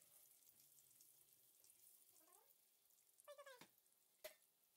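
Near silence, with a short faint squeak falling in pitch a little over three seconds in and a faint click just after it.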